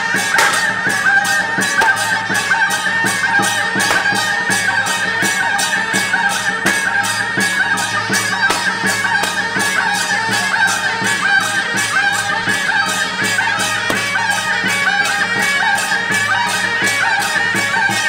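Taiwanese temple-procession music: a reedy wind horn, in the manner of a suona, holds long high notes over percussion struck at a quick, steady beat.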